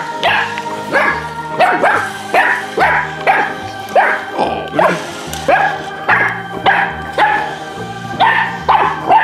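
English Pointer puppy barking repeatedly, about twice a second, each bark dropping in pitch, over background music with a steady beat.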